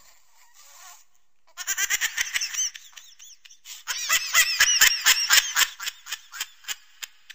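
High-pitched, manic laughter from a cartoon character's voice, coming in rapid bursts. It starts about a second and a half in, stops briefly, and comes back denser from about four seconds in.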